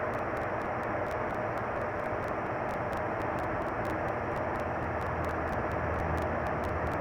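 Steady background noise with a faint low hum and a thin steady tone, with faint regular ticks riding on top. No speech.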